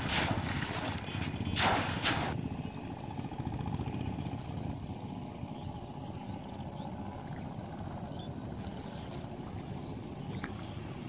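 Water splashing twice, about a second and a half apart, as a bamboo fish trap is swished and dunked in shallow water. A steady low rumble and trickling water follow.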